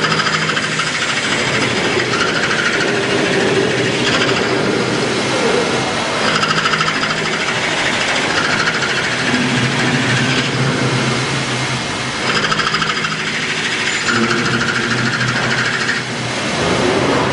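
Hanwha XD26II-V Swiss-type CNC automatic lathe machining: a continuous mechanical whir and rattle, with steady tones that change pitch every second or two.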